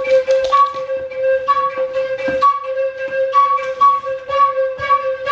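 Background music: a steady held note under a short melody that repeats about every half second, with light ticks of percussion.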